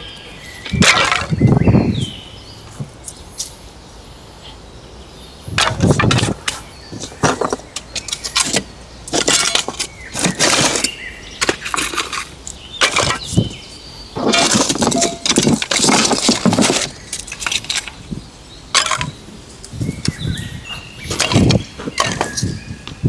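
Irregular handling noises: sharp knocks and clinks mixed with short rustling bursts, coming every second or two.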